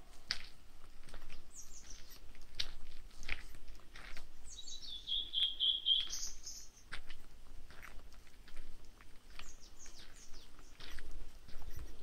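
Steady footsteps crunching on a dirt forest trail. About halfway through, a songbird sings a phrase of high notes stepping downward and ending in a quick rising note, and a few brief high chirps come near the start and later on.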